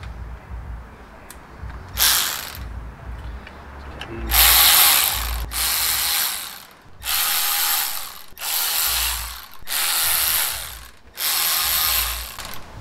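Cordless ratchet run in seven short bursts, most about a second long, spinning in the bolts of a clutch pressure plate.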